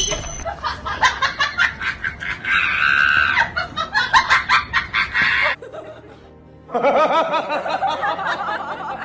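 Background music and laughter, broken by a brief lull about six seconds in, after which a wavering, warbling sound starts.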